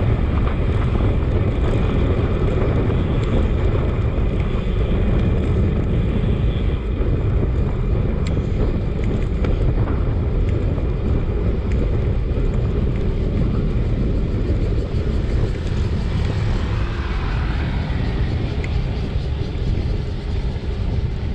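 Wind buffeting the microphone of a camera riding on a road bike on a fast downhill, a loud, steady low rumble.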